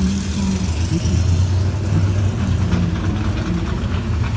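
An engine idling steadily, a low continuous drone.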